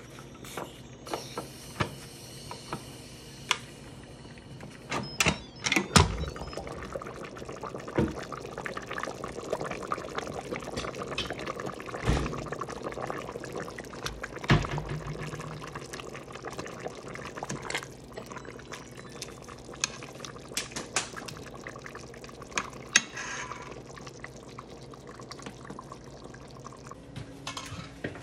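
Instant Pot lid clicking and rattling as it is turned open, then liquid sloshing and dripping in the stainless inner pot as the cooked lamb, potatoes and broth are moved about, with a few dull knocks against the pot.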